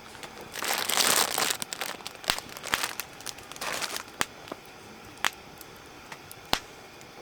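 Crinkling and rustling, as of packaging being handled, loudest about a second in and going on in short bursts for a few seconds, then three isolated sharp snaps.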